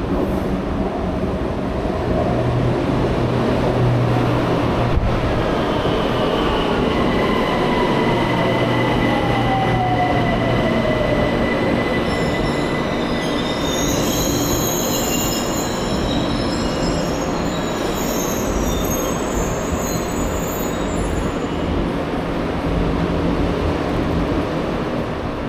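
Bangkok BTS Skytrain train running, with a steady rumble. A motor whine falls in pitch a quarter of the way in, and high wheel squeals follow through the middle.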